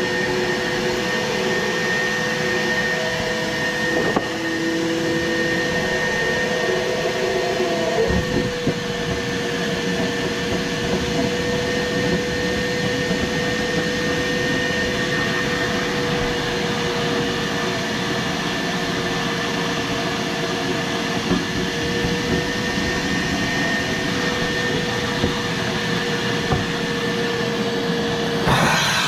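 Wet/dry shop vacuum running steadily on a furnace condensate drain line, pulling water and gunk through to clear the clog. A few knocks near the end.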